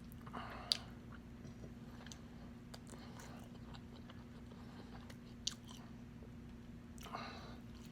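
Close-miked chewing and biting of spicy pork adobo: soft wet mouth sounds with scattered small clicks. A sharp click about a second in is the loudest sound, with another about five and a half seconds in. A steady low hum runs underneath.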